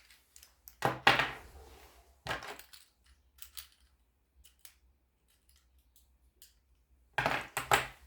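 Small metal everyday-carry items, car keys among them, being handled and set down on a surface. Clinks and clacks come about a second in and again around two seconds, with light ticks in between and a louder clatter near the end.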